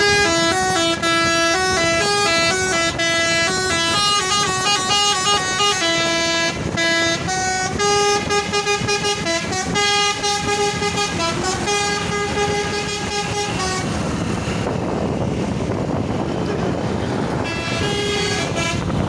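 Telolet multi-tone horn on an Indonesian tour bus playing a melody: several horn notes held together and stepping from pitch to pitch for about fourteen seconds. Then a few seconds of steady rushing noise, and a short burst of horn notes again near the end.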